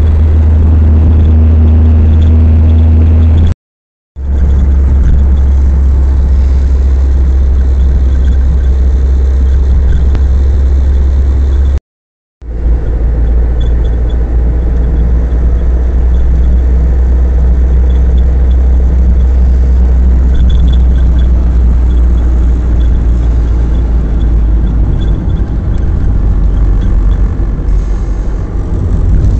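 Steady low rumble of a car's engine and road noise heard inside the cabin while driving. It cuts out completely twice, briefly, about four and twelve seconds in.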